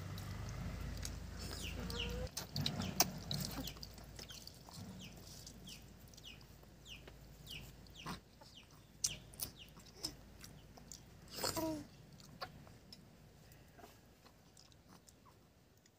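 Chickens calling: a run of short, high, falling peeps, about two a second, then one louder, lower cluck about eleven and a half seconds in.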